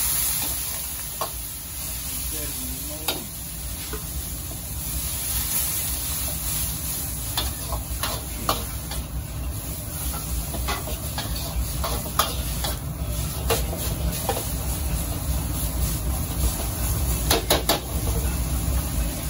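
Pad Thai rice noodles sizzling in a wok over a gas wok burner. Water ladled in at the start hisses into steam, and then a metal wok ladle scrapes and clanks against the wok as the noodles and egg are stir-fried, with a quick run of strikes near the end. A steady low rumble runs underneath.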